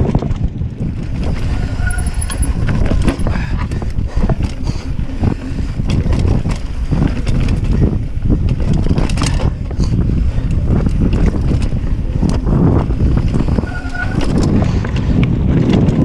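Mountain bike rolling fast down a rough dirt and rock trail: tyres rumbling over the ground, wind buffeting the microphone, and frequent clacks and rattles from the bike over bumps and rocks.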